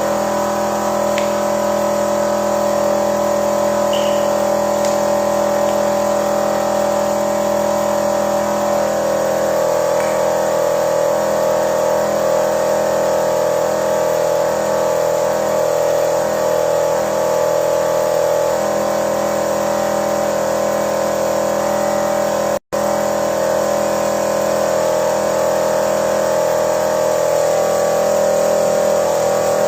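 Car engine running steadily during a no-disassembly carbon clean, a constant hum. It cuts out for an instant about 22 seconds in.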